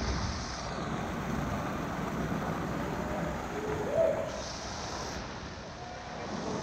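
A small creek running steadily through a narrow rock chute and spilling into a pool. About four seconds in there is one short rising hoot-like tone.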